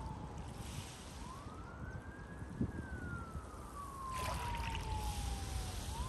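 An emergency-vehicle siren wailing: one tone that rises over about a second and a half, then falls slowly for about three seconds and starts to rise again near the end. Under it is the steady wash of sea waves, with surges of wave hiss about a second in and again a little after four seconds.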